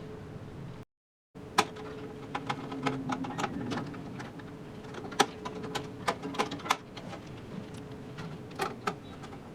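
Screwdriver driving the motherboard screws into a PC case: scattered sharp clicks and metallic ticks, over a steady faint hum. The sound drops out briefly about a second in.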